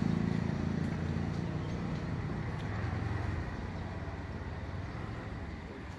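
A motor vehicle's engine running: a low, steady drone that slowly fades away over the few seconds.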